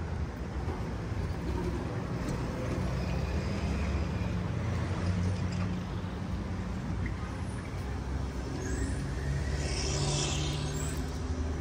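City road traffic: vehicle engines running steadily, with a short hiss about ten seconds in.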